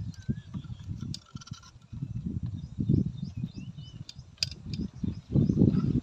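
Irregular low rubbing and bumping as an earthen toddy pot tied with rope is handled against the top of a palmyra palm, with small birds chirping faintly.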